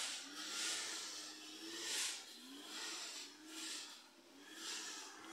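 Quiet outdoor ambience: soft swells of hiss about every second and a half over a faint low hum.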